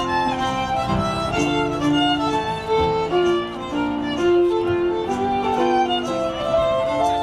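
Fiddle playing a Scottish country dance tune, a quick run of notes in a steady dance rhythm.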